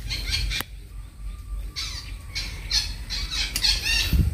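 Birds calling: a short run of high-pitched calls at the start, then a quicker series of repeated calls from about two seconds in to near the end, over a steady low rumble.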